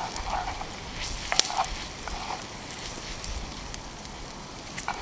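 A fire crackling: a steady hiss with scattered sharp pops, the loudest about a second and a half in.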